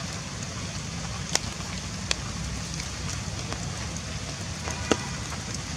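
Steady outdoor hiss with a low rumble, broken by three sharp clicks.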